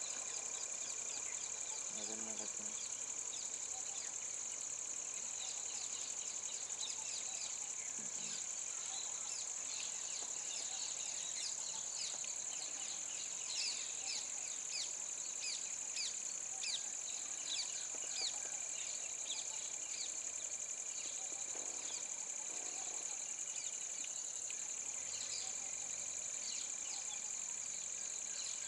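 Steady high-pitched drone of insects in roadside forest, with many short falling chirps of birds over it, thickest in the middle.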